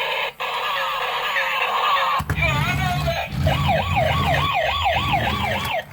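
Toy police car's electronic sound effects through its small speaker: a short tinny jingle or voice clip, then from about two seconds in a wailing police siren rising and falling quickly, about three times a second, over an engine-like rumble.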